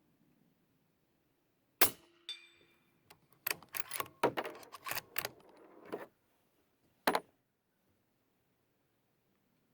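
Two suppressed shots from a bolt-action 300 Blackout rifle firing subsonic rounds, the first about two seconds in and the second about seven seconds in. Half a second after the first, a steel plate is hit and rings with a clang. Between the shots comes a run of metallic clicks and clatter, the bolt being worked.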